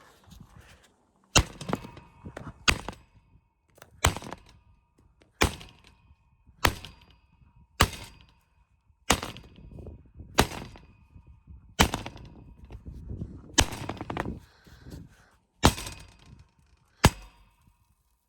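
A dozen sharp knocks at a steady pace, about one every 1.3 seconds, each with a short ring: blows struck to work loose a fractured safety-glass dome panel.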